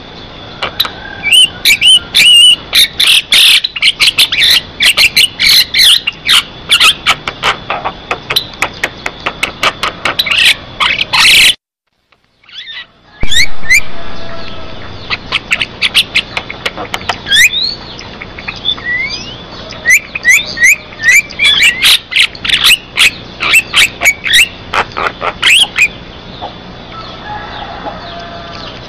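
Javan myna singing vigorously: a fast, unbroken stream of sharp clicks, chatters and short rising whistles, with a brief break about twelve seconds in.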